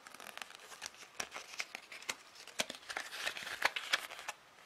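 A paper instruction leaflet being handled and unfolded: irregular crisp rustles and crackles of paper that die away near the end.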